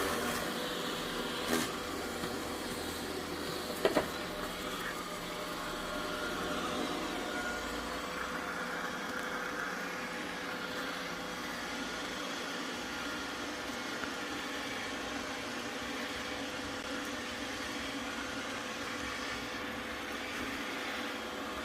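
Roborock Q7 Max robot vacuum running steadily while cleaning, with a steady hum. A sharp knock comes about a second and a half in, and a quick double knock about four seconds in.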